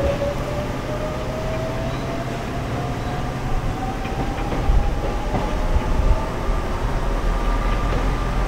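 Electric train pulling away, the whine from its motors and gears rising slowly in pitch as it gathers speed. A low rumble and a few rail clacks come in about five seconds in.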